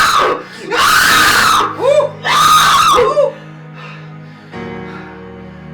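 A person screaming in several loud, drawn-out screams over background music. The screams stop about three seconds in, leaving soft, steady guitar music.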